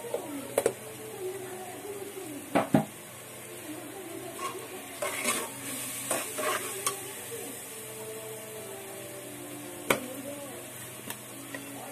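A spatula stirring an onion, garlic and chili masala in a metal karahi, knocking and scraping against the pan over a low sizzle. The loudest knocks are a sharp pair about two and a half seconds in, a run of scrapes and taps a few seconds later, and a single knock near the end.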